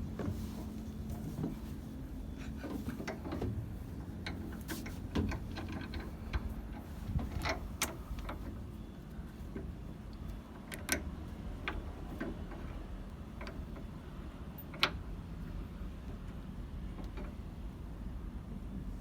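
Scattered, irregular light clicks and taps of hand tools on metal over a low steady rumble, during work fitting a beacon light to an excavator.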